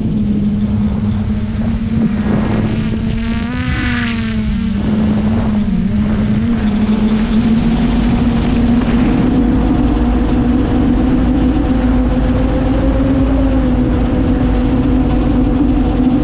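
Quadcopter drone's motors and propellers buzzing steadily in flight, heard close up from the onboard camera, with low wind rumble on the microphone. A wavering higher tone rises and falls briefly about three to five seconds in.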